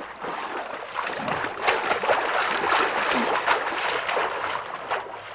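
Rushing, splashing water as a boat sinks, steady throughout and full of small splashes.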